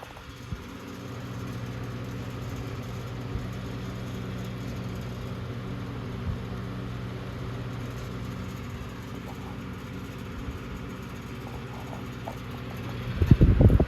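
Antique Emerson 29668 six-blade table fan running with a steady motor hum and a light vibration rattle, which the owner traces to the taped-up oscillator arm. A loud low rumble comes near the end.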